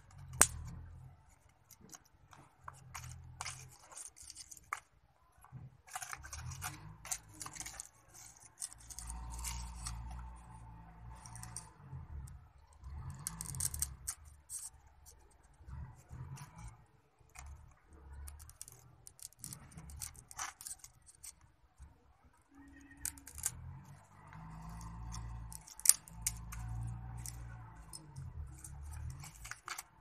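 Thin bamboo sticks clicking and scraping against each other as they are fitted by hand into a small stick-frame cage trap. The clicks come in scattered runs, with a few sharper snaps, over a low rumble.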